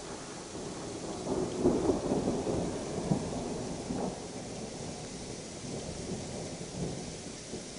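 Thunder rumbling: it swells about a second in, rolls for a few seconds and fades. Under it runs the steady hiss of soft hail falling.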